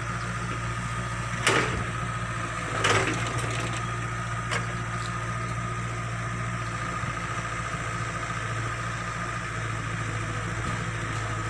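Excavator's diesel engine running steadily, with two short clanks about a second and a half and three seconds in.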